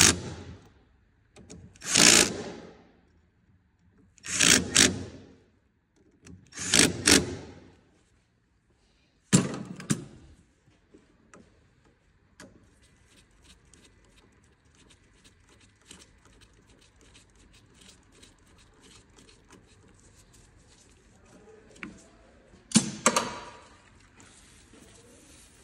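Audi A3 diesel engine cranked in a run of short, loud bursts about two seconds apart, as it is turned over to draw fuel through after a fuel filter change. Then faint irregular ticking, and one more short burst near the end.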